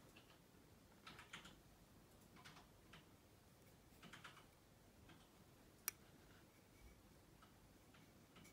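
Faint handling sounds: fingernails and rings clicking and rubbing on a ceramic candle holder as it is turned in the hands, in a few small clusters, with one sharp click about six seconds in.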